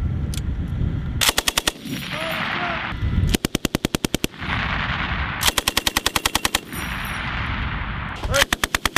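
M240B belt-fed 7.62 mm machine gun firing four short bursts of about six to twelve rounds each, at about ten shots a second. A rushing sound lingers between the bursts.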